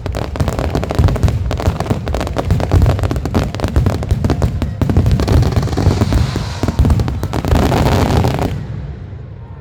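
Fireworks going off in a rapid, dense string of bangs, joined by a hissing crackle from about five seconds in, then stopping suddenly near the end.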